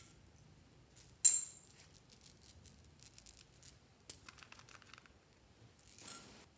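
Clear plastic tube of small plastic beads being handled and opened: one sharp plastic click a little over a second in, the loudest sound, then light clicks and rattling of the beads, and a brief gritty rush near the end.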